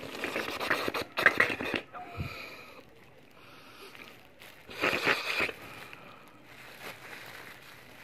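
Close-up eating sounds of a shawarma wrap being chewed: wet chewing and lip-smacking in two bouts, for the first two seconds and again around five seconds.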